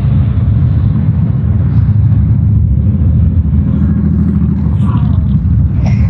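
A steady stream of motorcycles and three-wheeled Can-Am Spyder roadsters riding past, their engines making a loud, continuous low rumble.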